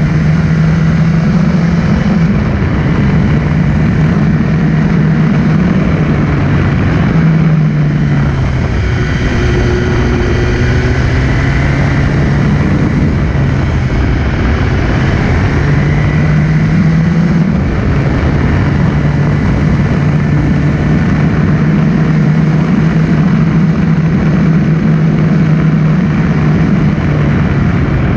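Sport motorcycle engine running at steady mid revs, heard from on board with road and air noise. The engine note dips twice, about seven seconds in and again around eighteen seconds, then picks back up.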